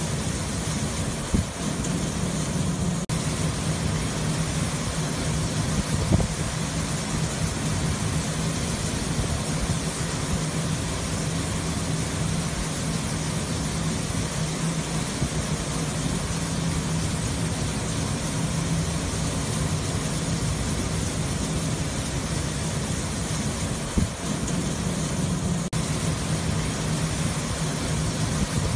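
Steady rushing din of granular fertilizer pouring from a shiploader spout into a ship's cargo hold, over a constant low machinery hum, with a few short knocks.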